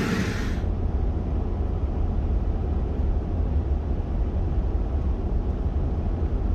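A vehicle on the move, giving a steady low road-and-engine rumble. A higher hiss fades out about half a second in.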